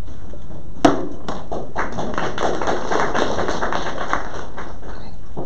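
A single sharp thud about a second in, followed by a few seconds of quick, irregular taps and knocks that thin out near the end.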